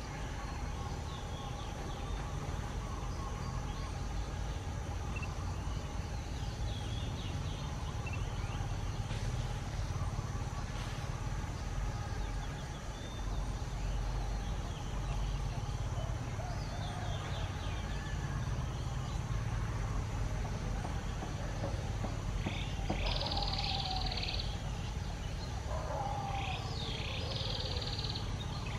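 Outdoor background with a steady low rumble and a faint steady high tone, and a few short high-pitched animal calls near the end.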